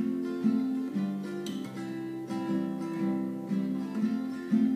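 Capoed acoustic guitar playing chords in a steady, even rhythm, with no voice.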